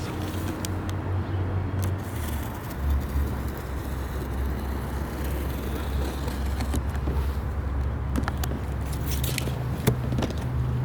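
Steady low hum of a car running, with scattered clicks and crackling as a parts box and its wrapping are opened.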